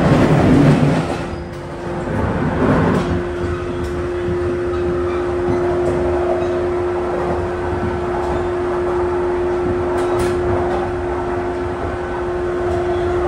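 JR 185 series electric train running, a steady hum under rumbling rail noise, with louder swells about half a second in and again near three seconds.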